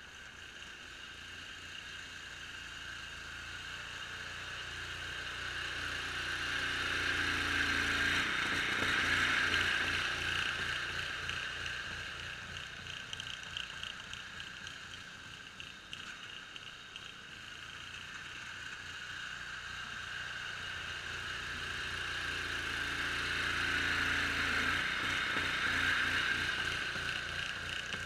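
Homemade 6x4 Craftsman garden tractor's engine running under load as it pushes snow with a front blade. It grows louder as the tractor nears, twice: once about a third of the way in and again near the end.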